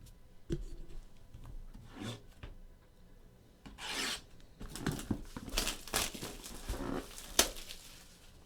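A sealed cardboard trading-card box being worked open by hand: cardboard rubbing and scraping, a brushing rustle about four seconds in, then a run of scrapes and clicks with one sharp tap near the end.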